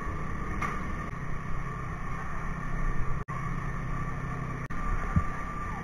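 An engine running steadily, with a steady high whine above its low drone, and a brief low thud about five seconds in.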